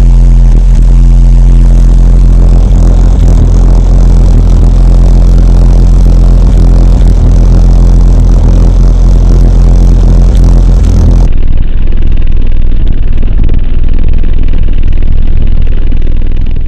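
Car audio subwoofer playing a bass-heavy beat at very high volume, deep sustained bass notes swamping the recording. About eleven seconds in the sound changes abruptly to a thinner, duller take with less deep bass.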